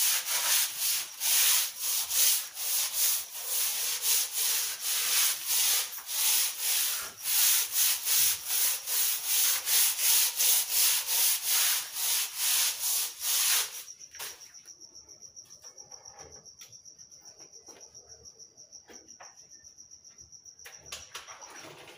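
Stiff plastic scrub brush on a long handle scrubbing a wet, soapy concrete floor in quick back-and-forth strokes, about two or three a second. The scrubbing stops abruptly about two-thirds of the way through, leaving a faint, steady, high-pitched trill.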